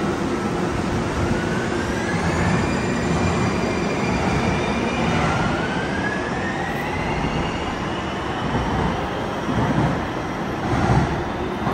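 TriMet MAX light-rail train accelerating away from the platform. Its electric traction motors whine in rising tones that climb twice, over a steady rumble of wheels on rail.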